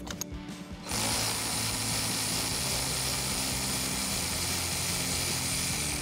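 Cordless electric ratchet with a 10 mm socket running steadily as it backs out a 10 mm bolt. It starts about a second in and runs on without a break.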